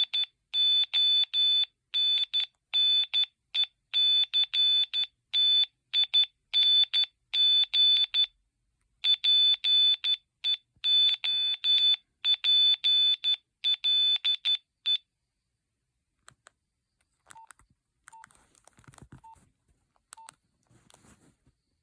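Nokia 2112 mobile phone playing a preloaded monophonic ringtone: a fast, rhythmic run of short, high beeping notes that stops about 15 seconds in. A few faint short beeps and clicks follow.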